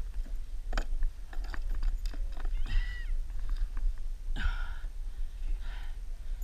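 Wind rumbling on the camera microphone, with knocks and splashes as a fish is hauled aboard a plastic kayak. Two short, high cries about three and four and a half seconds in.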